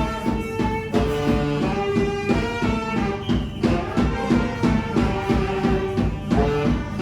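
Taiwanese funeral band playing a tune: held melody notes from wind instruments over a steady drum beat.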